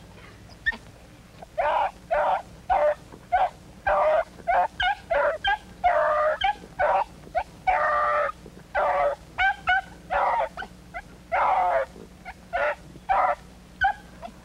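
Beagles baying as they run a rabbit's fresh trail: a long run of short yelping barks with a few longer, drawn-out bays, beginning about a second and a half in.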